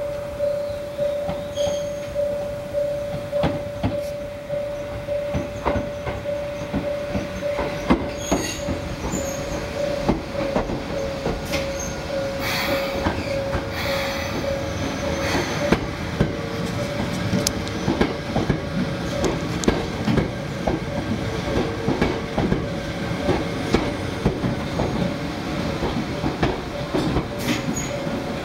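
A level-crossing alarm ringing steadily as a repeating single-pitched bell, while a Hakone Tozan Railway 1000-series electric train rolls slowly into the station, its wheels knocking over rail joints. The train's noise builds from about twelve seconds in as the cars pass close by.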